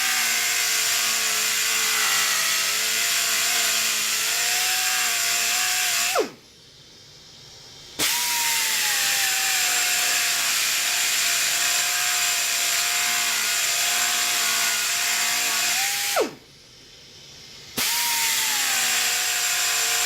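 Electric buffer spinning a cloth buffing wheel with white compound to polish scratches out of a CD's plastic. It runs with a steady whine, cuts off abruptly twice and starts up again each time.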